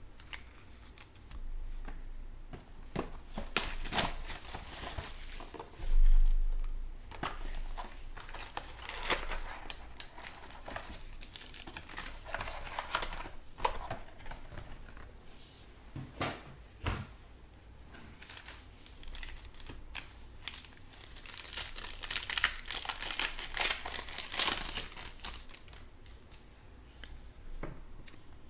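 Hands opening a sealed box of trading cards: irregular crinkling and tearing of wrapper and cardboard, with a loud low thump about six seconds in.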